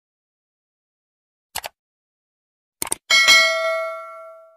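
A few short clicks, then about three seconds in a single bell-like chime struck once, ringing with several tones and fading away over about a second and a half.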